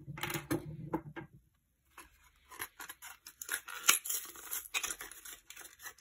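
Plastic-and-card blister package being pulled and torn open by hand to free the key: irregular crinkling, ripping and sharp crackles, with a short lull about a second and a half in and the loudest crack near the middle.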